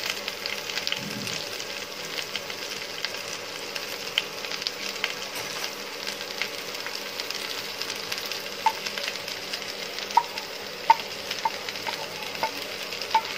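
Sliced onions, tomatoes, potatoes and drumstick sizzling gently in coconut oil in a pan, a steady hiss with scattered crackles. In the second half, short pops come every half second or so.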